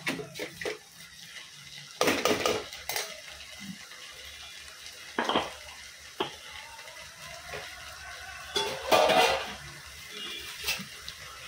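A steel spoon clinking and scraping against a stainless steel kadai as onions are stirred, in several separate clatters, the loudest about two seconds in and again near nine seconds in. A faint sizzle of frying runs beneath.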